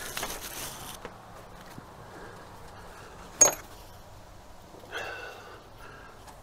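Small metal parts being handled at a fuel rail as a fuel injector and its retaining clip are fitted: a short rustle, then one sharp metallic click about three and a half seconds in.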